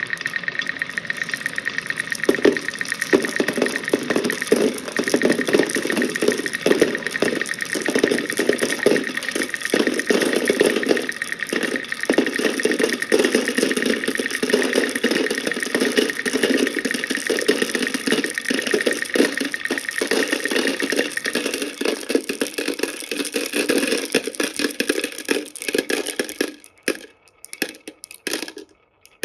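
Many small balls rolling and clattering down a wooden wave-shaped ball track in a continuous dense rattle, fuller from about two seconds in. It thins to scattered clicks over the last few seconds as the last balls run out.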